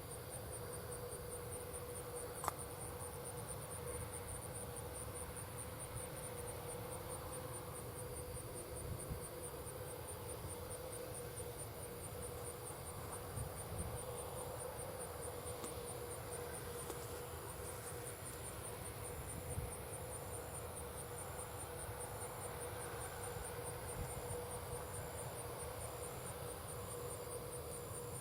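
Field insects chirping in a fast, even, high-pitched pulse, joined about halfway by a second, slower pulsing chirp, over a faint steady hum and low rumble.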